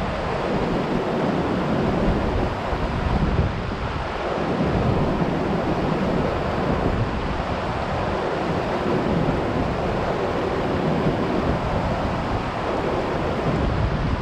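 Shallow river rushing over rocks and through a small rapid, a steady noise, with wind buffeting the microphone in the low end.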